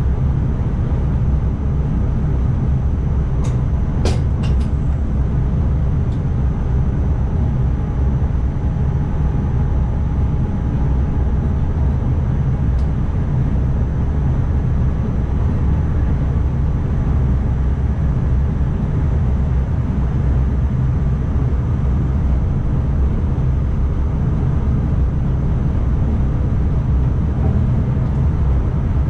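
ICMm electric intercity train running steadily, heard from the driver's cab: a continuous low rumble of wheels on rail, with a faint steady high whine and a few sharp clicks about four seconds in.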